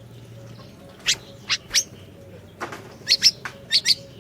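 Siri-siri bird calling: short, sharp, high chirps, a few spaced notes and then a quicker run of them near the end.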